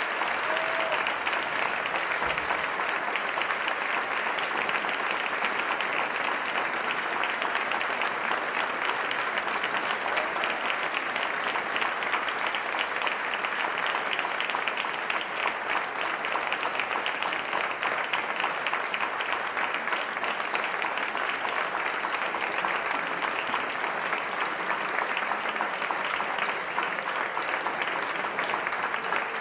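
Audience applauding, a dense, steady clapping with no music.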